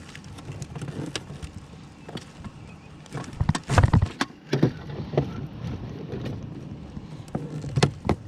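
A vehicle running steadily, with a cluster of loud thumps and clatters about halfway through and two sharper knocks near the end.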